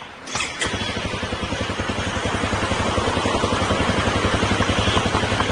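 Honda CRF250 Rally's single-cylinder engine starting about half a second in, then running with a steady pulsing beat that grows gradually louder.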